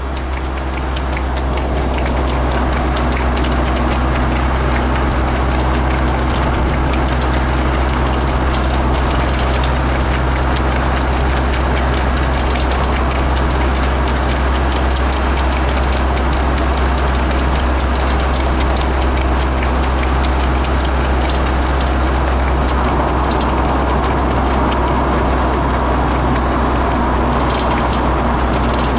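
Steady engine and tyre-on-road drone of a vehicle at a constant speed, heard from inside its cab.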